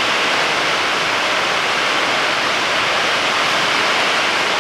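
Heavy rain falling on a metal-clad garage roof, a loud, steady, even hiss.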